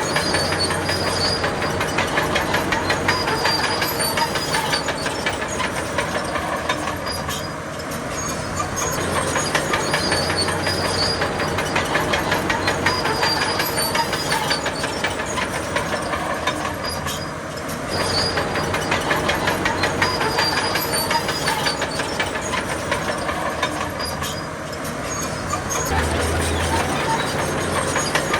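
Crawler bulldozer working, its diesel engine running under a fast, steady clatter of steel tracks. The sound eases briefly three times.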